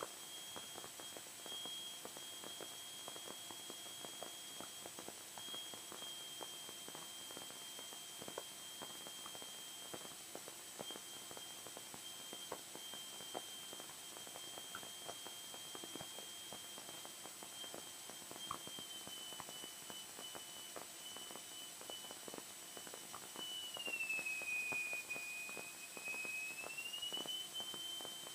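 Faint steady high-pitched whine on the Cessna 172S cockpit audio feed, over a faint hiss with scattered small clicks. Near the end the whine dips lower in pitch and rises back, growing slightly louder.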